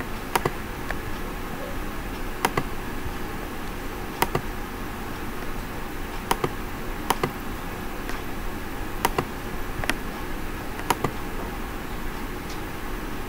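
Computer mouse clicks, a sharp click every second or two, several as quick double clicks, over a steady hiss and hum of room noise.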